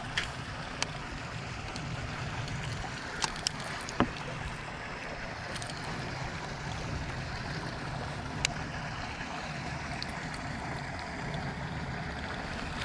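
Steady rushing outdoor background noise, with a handful of sharp clicks scattered through it from handling a baitcasting reel and a lure.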